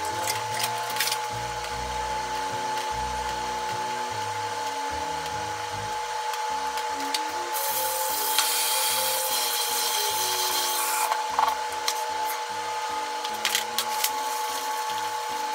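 Kitchen tap running for about three seconds midway, rinsing cherry tomatoes in a plastic colander, with clicks and rattles of the colander and tomatoes being handled before and after. Soft background music and a steady hum run underneath.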